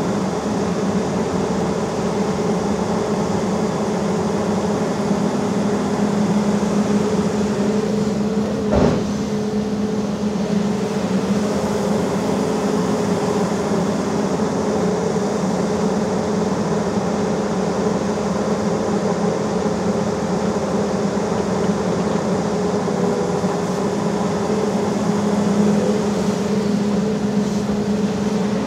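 Volvo EC380E crawler excavator's diesel engine running steadily at working speed as the machine digs and swings, with a single sharp clank about nine seconds in.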